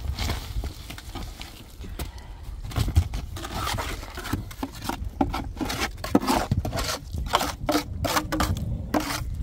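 Repeated irregular scraping and rubbing strokes, growing busier from about three seconds in.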